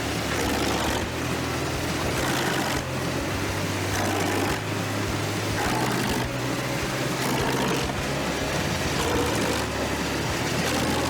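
Wood chipper running: a steady engine drone under a broad chipping and rushing noise that swells every second or two as wood is fed through.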